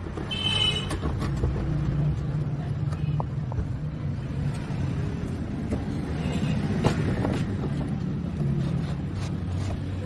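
Toyota Fortuner engine running at a steady idle. A brief high-pitched squeal sounds about half a second in.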